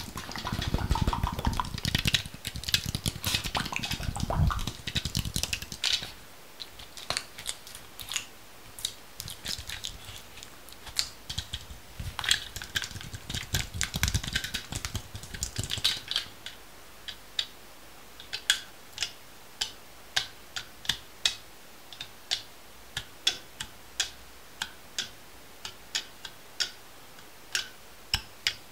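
Close-miked ASMR handling sounds: dense crackling and rustling for the first few seconds, then sparse, sharp clicks and taps, a few a second.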